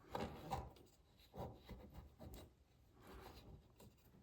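Faint scraping and rubbing of small faucet parts being handled and fitted by hand, in a few short bouts.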